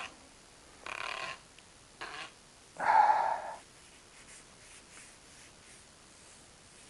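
Four short, harsh animal calls about a second apart, the fourth the loudest and longest, followed by a few faint clicks.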